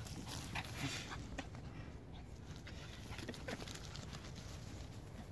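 Quick, irregular footsteps and rustling through grass as a small papillon dog is chased across a meadow, with scattered short clicks and thuds over a low rumble of handling noise.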